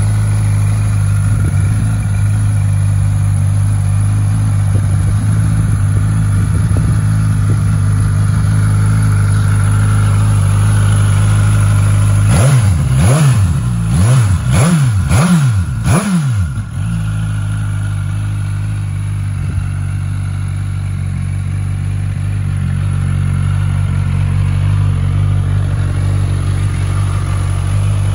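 Suzuki GSX-S1000 Z's inline-four engine idling steadily. About halfway through, the throttle is blipped five times in quick succession, each rev rising and falling, before it settles back to idle.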